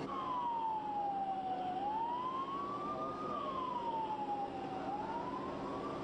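Ambulance siren wailing, its pitch sliding slowly down and back up in cycles of about three seconds.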